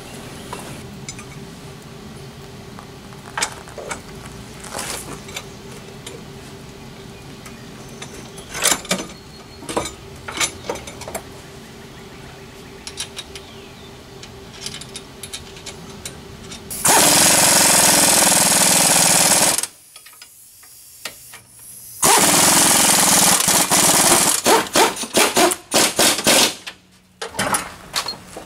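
Scattered clanks and knocks of tools on metal, then a handheld power tool running hard in two long bursts, about three seconds and then about four. The second burst breaks up into rapid short bursts near the end.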